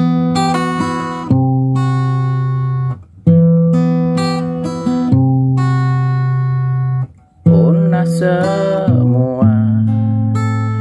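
Instrumental song intro on acoustic guitar: ringing chords, struck anew about 3 seconds in and again about 7 seconds in, with a wavering higher melody line joining over the last few seconds.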